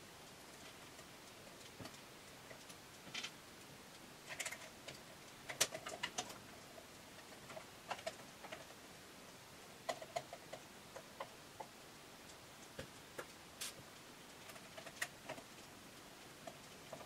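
Irregular small metallic clicks and ticks, single and in short clusters, from a T5 Torx screwdriver and tiny screws being set and tightened into an opened MacBook Pro's aluminium chassis.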